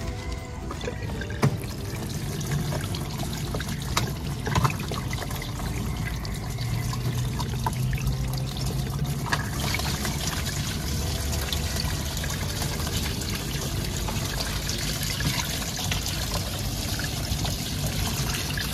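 Water running and splashing over washing machine parts as they are washed, with a few sharp knocks in the first five seconds.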